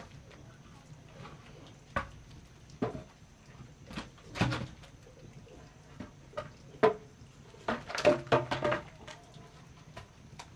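Bamboo poles knocking against each other and the ground as they are handled and laid down: a string of separate irregular knocks, with several in quick succession about eight seconds in.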